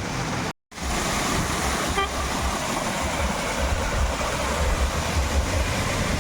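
Car on the move: steady road and wind noise with a low rumble, and a short horn toot about two seconds in. The sound breaks off for a moment just after the start.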